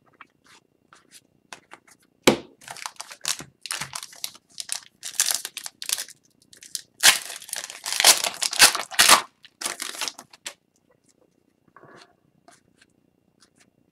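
Crinkly wrapper of an Upper Deck Series 2 hockey card pack being torn open and crumpled by hand: a quick run of rustling tears that starts about two seconds in, is loudest in the middle and dies away a few seconds before the end.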